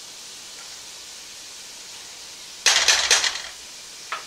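Diced onion and celery sizzling softly in butter in a stainless steel stock pot. About two-thirds of the way in, a cooking spoon clatters sharply against the metal pot several times in quick succession, and it clicks twice more as it is set down near the end.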